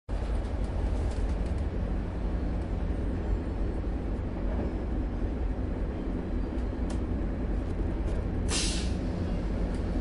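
Interior of a moving train carriage: a steady low rumble with a few faint clicks and rattles. A short hiss comes about eight and a half seconds in.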